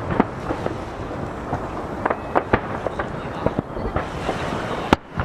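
Aerial fireworks shells bursting over the sea: a run of sharp bangs and crackles that echo back off the nearby mountains, the loudest bang about five seconds in. Beneath them is a steady wash of waves breaking at the jetty.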